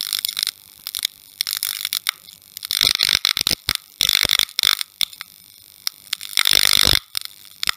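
Electrical crackling and sputtering of a neon sign flickering on: irregular sharp clicks and buzzing bursts, with longer crackles about three, four and six to seven seconds in.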